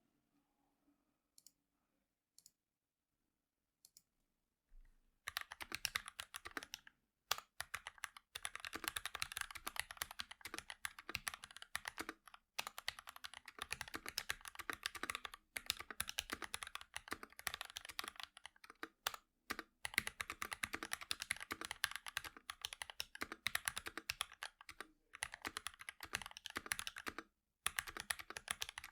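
Mechanical keyboard being typed on: an NK65 Entry Edition polycarbonate board with JWK linear switches lubed with Krytox 205g0, filmed, under doubleshot ABS keycaps. A few single key presses come first, then fast, continuous typing from about five seconds in, with brief pauses.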